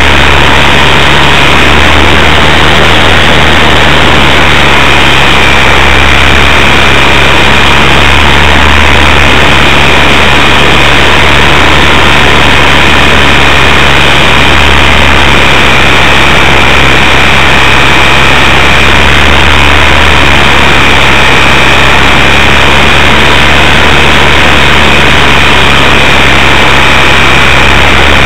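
Electric motor and propeller of an RC Super Cub LP floatplane in flight, heard from an onboard camera: a loud, steady high whine over a constant low drone and a dense rushing noise.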